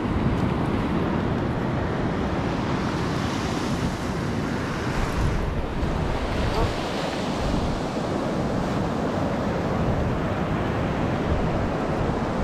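Ocean surf washing up the beach, a steady rush of waves that swells a little a few seconds in, with wind rumbling on the microphone.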